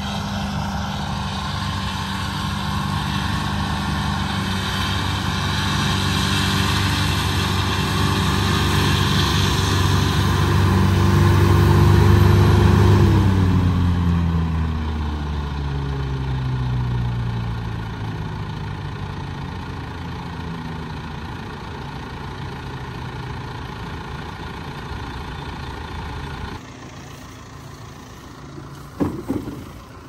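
John Deere tractor running with its mower-conditioner, then slowing down, its pitch falling over a few seconds to a lower idle. A short knock comes near the end.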